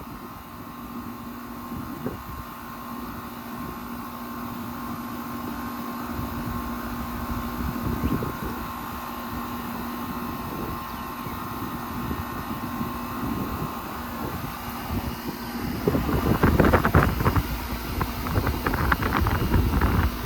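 Central air conditioner condensing units running: a steady compressor hum with condenser fan noise. Wind buffets the microphone throughout, heaviest in gusts over the last few seconds.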